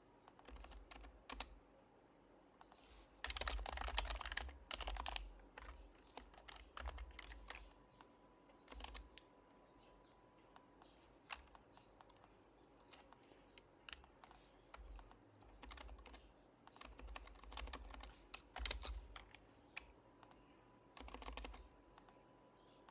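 Typing on an HHKB Professional HYBRID Type-S keyboard with Topre switches. The keystrokes come in quick runs with pauses between.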